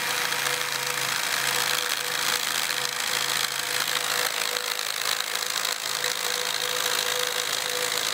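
Power drill running continuously, its bit boring a hole through the side of a stock shock reservoir cap held in a vise, nearly through the metal.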